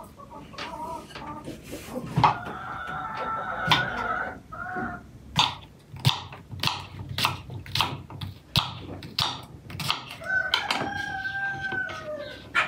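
Kitchen knife slicing a cucumber on a wooden cutting board, a run of chops about two a second. A rooster crows twice, about two seconds in and again near the end.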